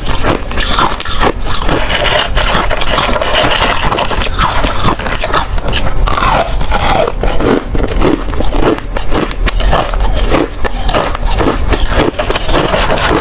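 Ice cubes being bitten and chewed close to the microphone: a loud, continuous run of cracks and crunches.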